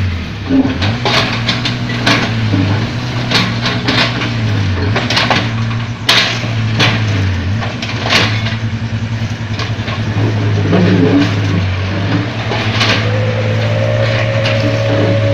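Hitachi excavator's diesel engine running steadily, dipping in pitch briefly several times under load, with repeated knocks and scrapes of the bucket breaking up the road surface. A thin whine joins near the end.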